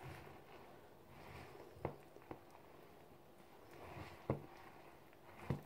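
Wire whisk stirring grated carrots and chopped nuts into thick cake batter in a plastic bowl: faint, soft squishing swells, with a few sharp clicks.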